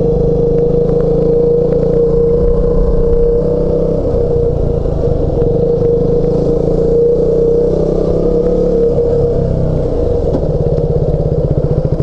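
KTM 200 Duke's single-cylinder four-stroke engine running steadily while the motorcycle is ridden at low speed. Near the end the engine note turns into a slow, even pulsing as the bike slows.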